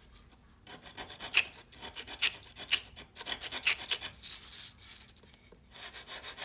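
An old file scraping the grit off cloth-backed sandpaper in short, repeated rasping strokes. The strokes start about a second in, pause briefly near the end, then resume.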